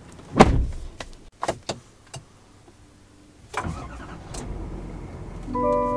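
A thump and a few light clicks, then the truck's 6.6-litre Duramax turbo-diesel V8 is started: it swells up and settles into a steady low idle. A dashboard chime sounds near the end.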